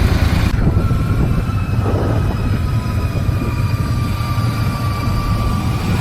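Royal Enfield Super Meteor 650's parallel-twin engine running steadily under way, a continuous low rumble with faint steady whines above it.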